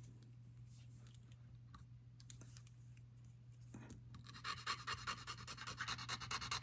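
A small metal jewelry piece is rubbed fast back and forth on a black acid-testing touchstone. After a near-quiet start, a quick run of short scratching strokes begins about four seconds in. The piece is being scratched to leave a streak for the acid test for sterling silver.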